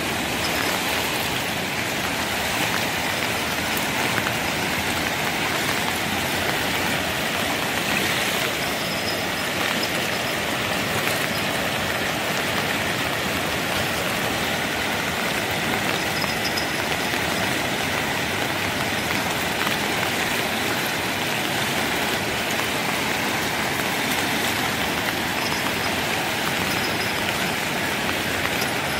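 Steady rushing of a swollen, muddy river in flood, mixed with falling rain: a constant, even hiss of water with no change throughout.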